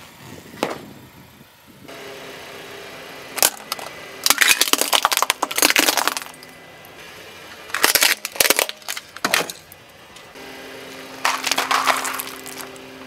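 A car tyre rolling over and crushing small brittle objects. The loud crunching, cracking and snapping comes in about four bursts, the longest lasting nearly two seconds.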